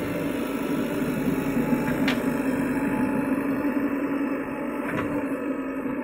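JCB 3DX backhoe loader's diesel engine running steadily while the machine digs and loads, with two short sharp knocks about two and five seconds in.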